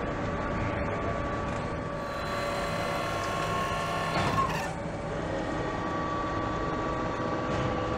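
Assembly-plant machinery noise: a steady mechanical hum with a few held tones, and a brief, louder sweeping sound about four seconds in.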